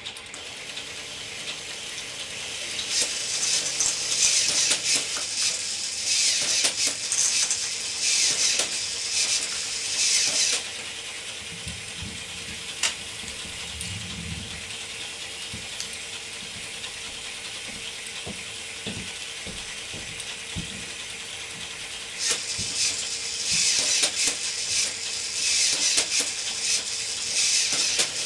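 K'nex roller coaster lift running under motor power: a steady motor hum, with plastic gears and pieces clattering and ratcheting. The rattling is loud for a long stretch a few seconds in and again over the last six seconds, with scattered clicks in the quieter stretch between.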